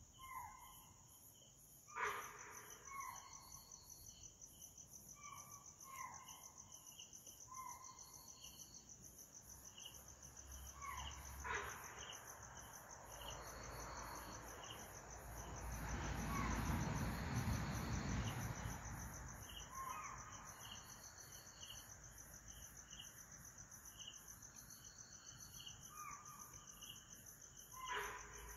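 Spotted deer (chital) and sambar deer giving alarm calls at night: short, sharp calls that fall in pitch, repeated every second or few, over steady cricket chirping. Alarm calls like these warn of a predator, here taken for a tiger or leopard close by. A low rushing noise swells and fades in the middle.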